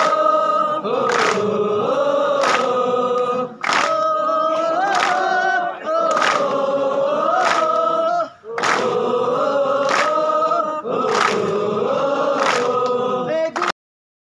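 A large group of men singing together in unison, holding long notes, with a short sharp sound on the beat about every second and a quarter. The singing cuts off suddenly near the end.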